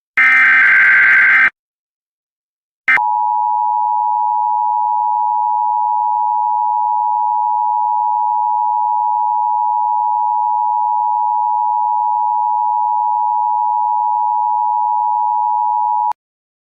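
Emergency alert broadcast tones: a short, loud buzzing data burst, then after a pause a click and a steady two-tone attention signal held for about thirteen seconds, cutting off suddenly.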